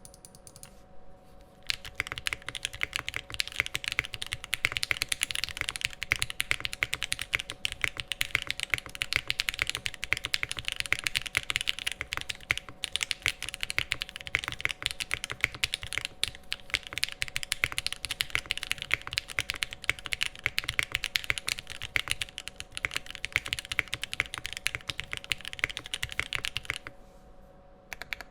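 Fast, continuous typing on a Mode Sixty Five mechanical keyboard with lubed, filmed Gateron Box Ink Black linear switches, a POM plate and GMK Triumph Alder keycaps. It makes a dense, even clatter of keystrokes that starts in earnest about two seconds in and stops briefly near the end.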